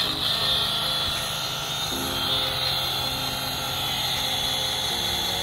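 Battery-powered pump motor of an NRT JC25DC cordless jet cleaner running steadily with a high whine, drawing water up its suction hose before it sprays.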